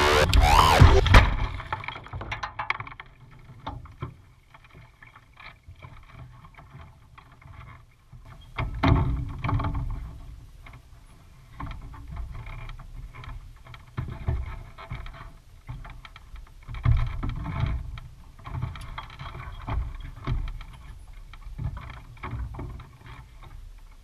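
A Kitfox light airplane flipping over onto a gravel bar, the crash noise dying away within about the first two seconds. After that, scattered knocks, thumps and rustling as the pilot moves about inside the upside-down cockpit.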